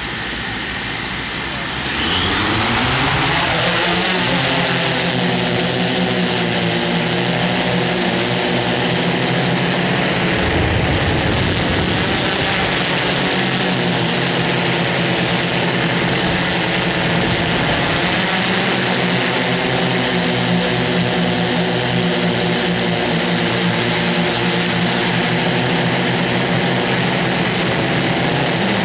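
An engine speeds up about two seconds in, then runs steadily at a constant pitch.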